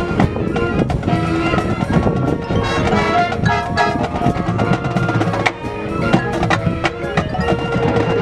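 High school marching band playing, with held horn notes over busy percussion and rapid drum strokes.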